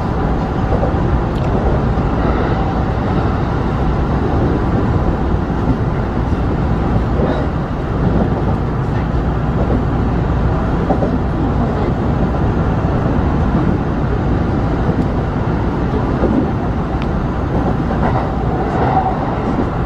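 Kintetsu express electric train running at speed, heard from inside the leading car: a steady rumble of wheels on the rails. Near the end a level-crossing warning bell rings briefly as the train passes the crossing.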